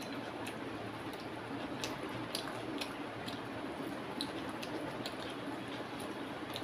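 Eating by hand: fingers mixing rice and chicken curry on a plate, with chewing. Scattered small squishes and clicks sound over a steady background hum.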